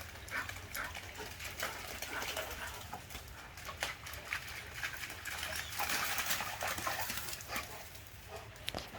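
A dog having zoomies in the rain: a busy, irregular run of short scuffs and clicks, busiest about six to seven seconds in, over a steady low hum.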